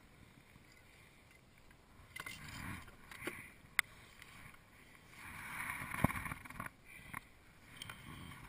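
Handling noises on a plastic kayak as a fish is taken with a lip grip and lifted from the water: rustling and bumps, with two sharp clicks about four and six seconds in.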